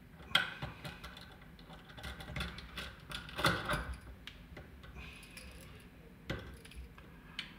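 Scattered small metallic clicks and clinks from an Elma rotary switch and its tiny screws being handled by hand, with the loudest click about three and a half seconds in.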